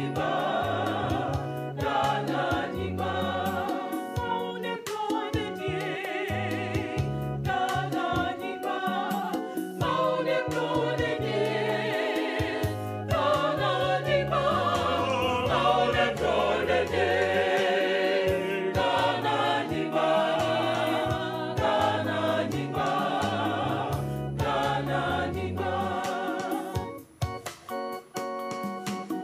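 Background music: a choir singing a gospel song over a steady bass line, briefly dropping out near the end.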